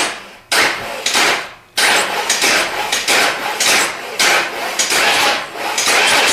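Starter motor cranking an engine, operated from a remote starter switch in an ignition-bypass test: two short bursts, then steady pulsing cranking from about two seconds in.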